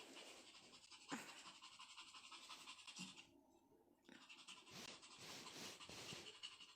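A Pomeranian panting quickly and faintly, with a short pause about three seconds in.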